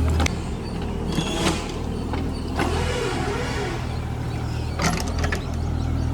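Mini excavator engine running steadily, its note dropping just after the start, with a few sharp knocks and clanks from the working machine.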